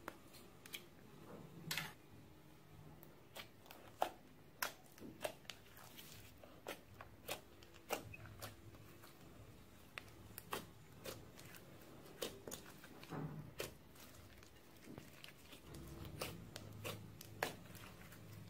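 Glossy slime being pressed, kneaded and stretched by hand, making faint, irregular sticky clicks and pops.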